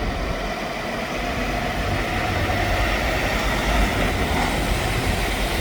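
A heavy vehicle engine running steadily at low revs, a little louder from about two seconds in.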